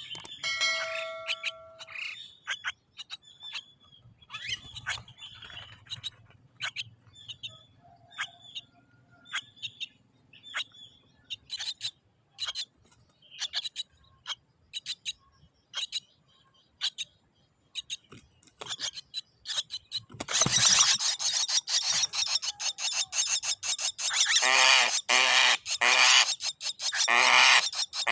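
Javan myna calling: scattered short chirps and clicks, then from about twenty seconds in a loud, harsh, rasping chatter that keeps going.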